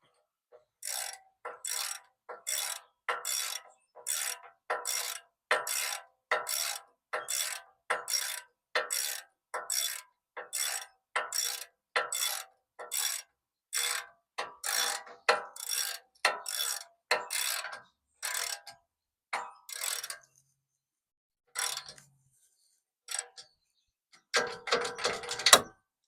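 Hand ratchet wrench tightening a nut: a steady series of short clicking back-strokes, a little more than one a second, then after a pause a quicker, louder run of clicks near the end.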